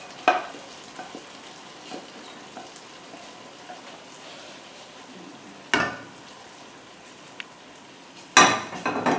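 Ham, onion and celery sizzling steadily in a frying pan as cheese sauce is poured and scraped in from a saucepan. Sharp clanks of metal cookware come about six seconds in, and a louder clatter near the end.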